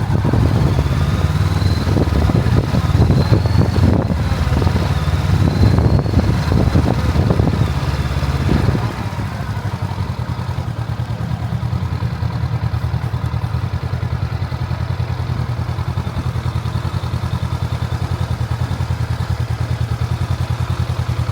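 Heavy wind buffeting the microphone over a running vehicle engine. About nine seconds in the wind noise drops away, leaving the engine running with a steady, even pulse.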